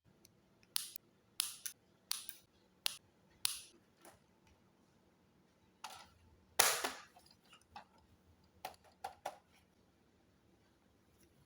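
About a dozen sharp plastic clicks and snaps at irregular intervals as parts are handled, with a longer, louder crackle about two-thirds of the way through.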